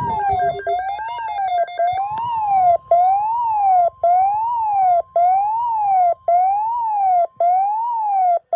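Weather alert radio sounding a siren-like alarm: a tone sweeping up and down about once a second with short breaks between sweeps. About two seconds in, the steady warning alarm tone of NOAA Weather Radio joins it and holds until near the end, marking the start of a severe thunderstorm alert.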